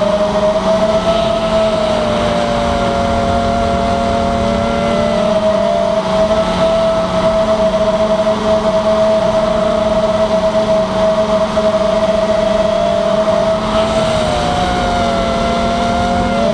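Diatone 225 FPV racing drone's motors and propellers whining steadily, heard from on board. The pitch of the motors drifts apart and back together as it manoeuvres, over a low rush of wind.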